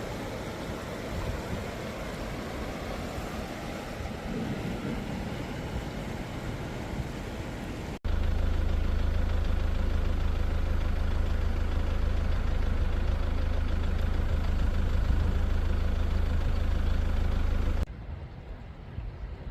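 Vehicle engine running steadily with a low hum. An even rushing noise runs under it in the first part, and a cut about 8 s in makes the hum much louder until it stops suddenly near the end.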